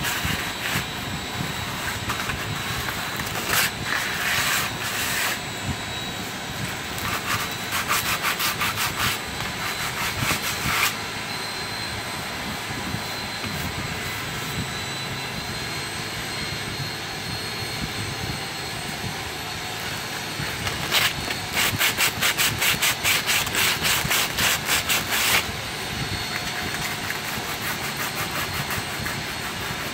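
Sandpaper rubbed by hand back and forth along the edges of plywood boat frames to knock down the edges, in bursts of quick strokes at about four a second, the longest run about two-thirds of the way in. A steady hum sits underneath.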